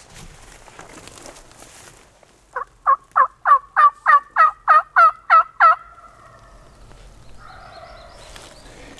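Turkey yelping: a series of about eleven loud, evenly spaced yelps, roughly three a second, each note dropping in pitch, building in loudness over the first few and then holding steady.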